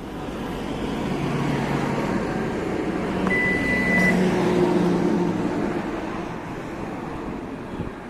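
Lexus RX power rear liftgate operating: the liftgate motor hums, swelling and then easing off, with a short high beep from the liftgate buzzer a little over three seconds in, over a steady background noise.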